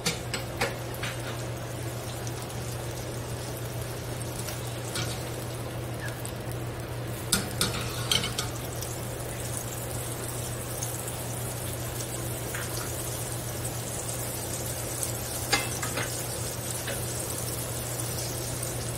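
A cube of butter melting and sizzling steadily in a hot stainless steel pan, with a steady low hum underneath. A few light clicks and taps cut in now and then.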